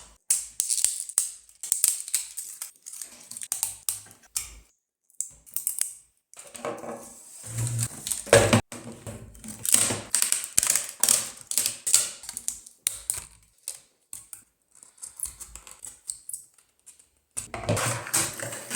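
Support material being picked and snapped off a 3D-printed plastic figure: an irregular run of sharp clicks, crackles and small snaps, broken by short pauses.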